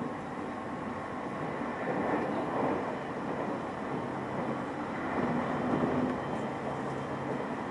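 Train running along the line, heard from inside the carriage: a steady rumble of wheels on rails, swelling louder twice, about two and five seconds in.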